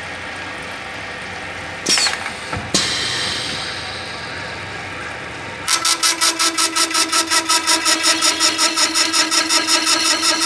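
Special-purpose double cutter and drill machine running, with a brief clatter about two seconds in. From about six seconds in it gets louder, pulsing rapidly and evenly, around five pulses a second, over a steady whine.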